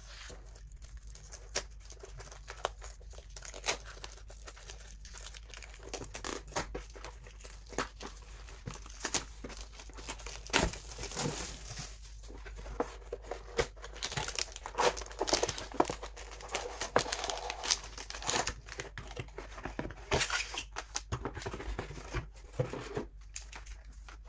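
Plastic wrapping being torn and crinkled off a cardboard box, with scattered clicks and taps as the box is handled. It grows busier and louder about halfway through.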